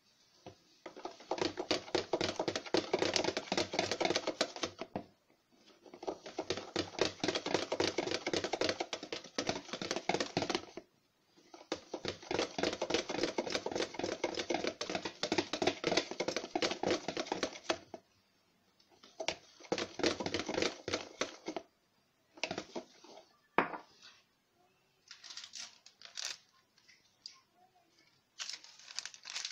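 Wire whisk beaten by hand in a plastic bowl of cake batter, a fast run of clicks and scrapes in four spells of several seconds with short pauses, as flour is mixed in little by little. Near the end, a few scattered taps and the rustle of paper sachets being handled.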